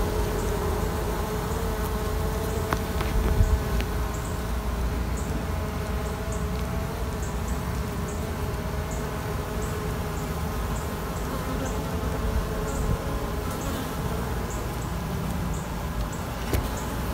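Honey bees buzzing around an open hive: a steady hum.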